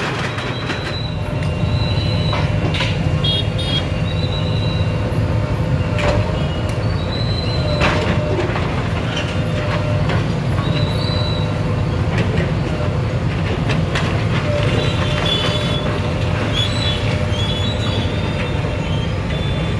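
A backhoe loader's diesel engine running steadily, with short high squeals and occasional knocks from demolition work.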